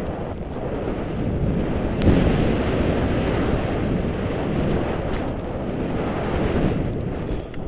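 Wind rushing over the camera's microphone during a fast ski run through deep powder snow. It gets louder about two seconds in and eases off near the end.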